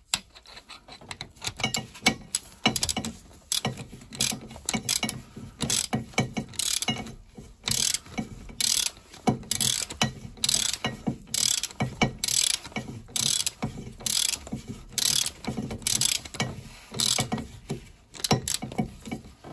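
Ratchet wrench clicking as it is swung back and forth to drive a spark plug home: short irregular clicks at first, then steady strokes about one a second.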